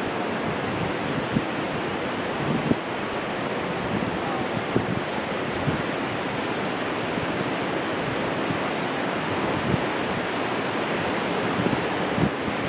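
Ocean surf washing steadily, with wind buffeting the microphone in short low thumps now and then.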